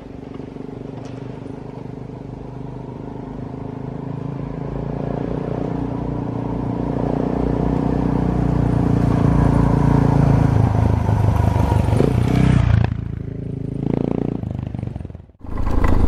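Suzuki DR650's single-cylinder four-stroke engine running as the motorcycle rides off. It grows steadily louder for the first ten seconds or so, eases off about thirteen seconds in with a short swell after, and cuts off suddenly near the end.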